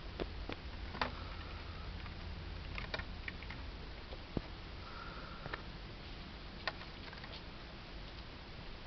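A small pet hamster running, its feet and movement giving irregular light clicks and taps, with a faint brief squeak about a second in and again about five seconds in.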